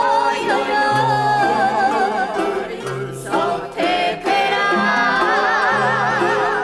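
A song: a singer holds long notes with a wide vibrato over a plucked guitar and a bass line that moves about once a second.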